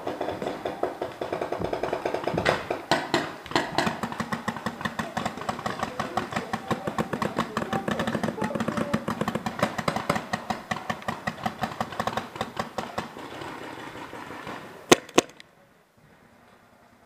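Paintball markers firing rapidly in a sustained exchange, a stream of sharp pops several a second. The stream dies away about thirteen seconds in, then two louder, closer shots follow about fifteen seconds in.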